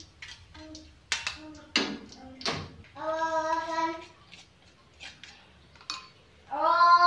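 A few sharp clanks of a metal slotted spoon and spatula against a wok. Then a high voice holds a long sung note twice, the second louder and rising at its start.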